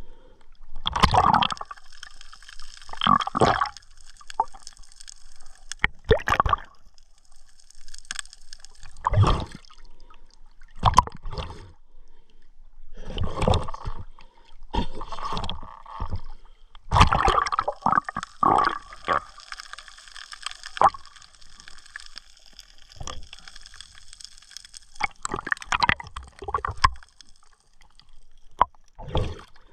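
Water gurgling and splashing in uneven bursts every couple of seconds, with a hiss between them.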